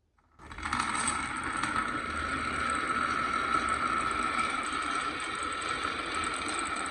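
Marbles rolling and rattling continuously down a marble run track, starting about half a second in and keeping up a steady clatter.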